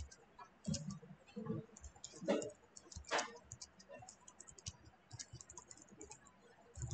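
Typing on a computer keyboard: an irregular run of faint keystrokes, with two louder strikes in the middle.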